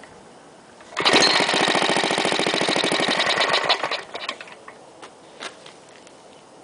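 1936 Briggs & Stratton WM single-cylinder air-cooled engine catching on a rope pull about a second in and running for about three seconds with rapid, even firing. It then dies away with a few last scattered pops.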